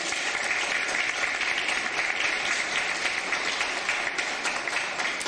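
Audience applauding: steady, dense clapping from a seated crowd.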